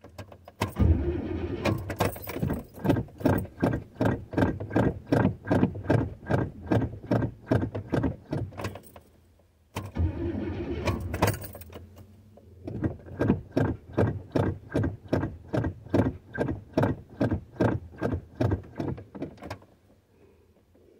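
1986 Chevrolet Caprice Classic's carbureted engine being cranked by its starter in two long tries of about ten seconds each, with a steady rhythm of about three compression pulses a second. The engine does not catch, a sign of the engine not getting fuel to the carburetor after sitting a year.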